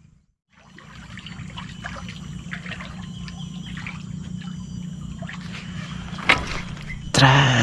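Water lapping and trickling against a floating wooden fishing raft over a steady low hum, with faint clicks, one sharper click about six seconds in, and a sudden loud sound near the end.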